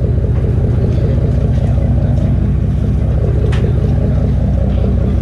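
Fishing boat's engine running steadily, a loud low drone with a fast even throb.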